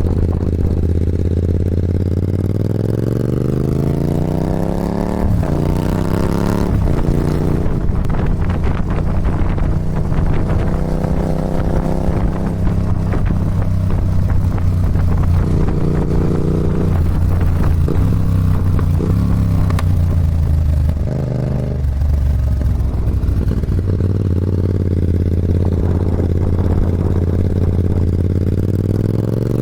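Yamaha MT-07's parallel-twin engine through a Musarri exhaust with only a mesh end cap and no baffle: it idles and is revved up and let fall back several times, pretty loud, with pops and bangs as the revs drop.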